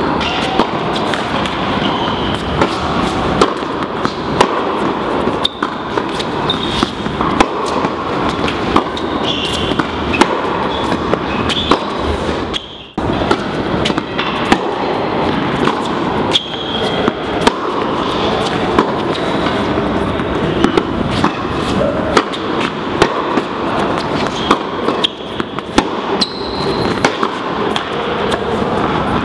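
Tennis rally: rackets strike the ball and the ball bounces on the court, heard as repeated sharp knocks over a steady, loud background noise.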